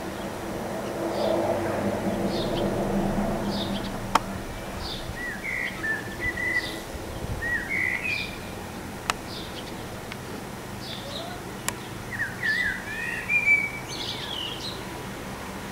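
Songbirds chirping and singing: short high chirps repeat about once a second, with warbling phrases between them. A low steady hum runs under the first four seconds and then fades, and a few sharp clicks stand out.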